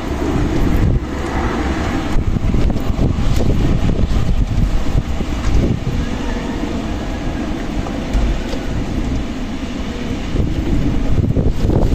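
Strong wind blowing in gusts, a dense deep rumble that swells and eases, louder near the start and again near the end.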